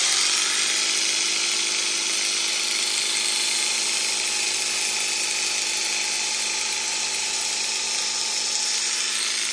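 Electric sheep shears (BEETRO 500W, six-speed) running steadily while trimming the pile of a tufted rug. They come up to speed in the first moment.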